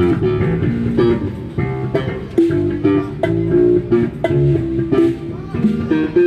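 Isan-style band music: a plucked-string lead playing quick repeated notes over bass guitar, with drum hits about twice a second.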